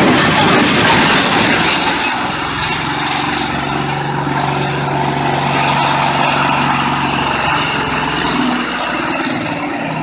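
A large vehicle engine running, with a steady low hum coming in about two seconds in over a noisy background.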